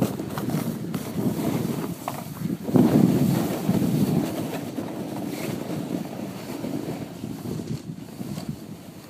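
Wind buffeting the phone's microphone in uneven gusts, loudest about three seconds in.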